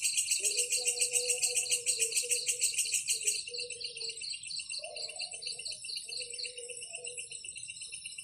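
Insects trilling in fast, even pulses, several at once, with part of the chorus dropping out about three seconds in. Soft, low melodic tones that change pitch now and then run underneath.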